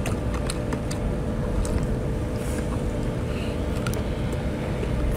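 A steady low rumble with a constant hum, like a running engine, under scattered small clicks and slurps of someone eating crab.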